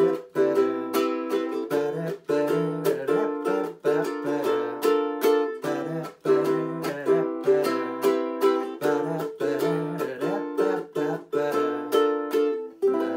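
Ukulele strummed in a steady rhythm of chords with sharp percussive chops from palm-blocking the strings, the song's down-block-up outro pattern. The chord changes every few seconds, and near the end a last chord is left ringing.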